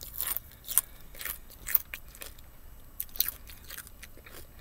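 Someone biting and chewing kettle-cooked potato chips close to the microphone: a string of irregular sharp crunches, about nine over the few seconds.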